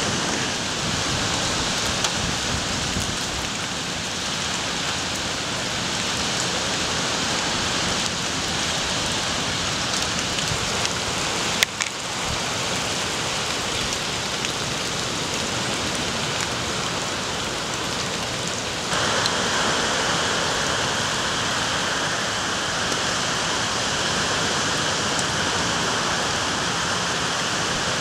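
Steady rain falling, an even hiss. There is a single sharp click about twelve seconds in, and at about nineteen seconds the hiss turns abruptly brighter and a little louder.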